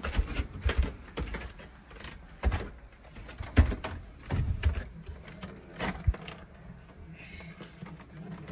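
Footsteps going down a staircase: irregular soft thumps, roughly one a second, mixed with the bumps and rubbing of a handheld phone being carried.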